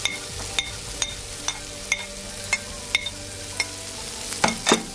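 Shiitake mushrooms, tofu, carrot and Chinese kale stalk sizzling in hot oil in a stainless steel frying pan, with sharp crackling pops about every half second. A few louder knocks come near the end.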